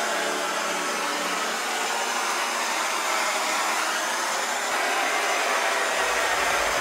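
Steady rushing blow of a small electric hot-air blower, with a low hum joining near the end.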